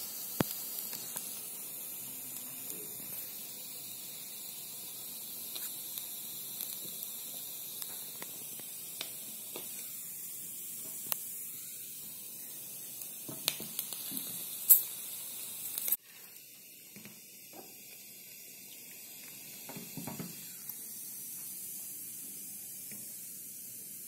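Flax seed papad dough roasting inside a closed electric roti maker: a steady sizzling hiss with scattered small crackles. The hiss drops off abruptly about two-thirds of the way in.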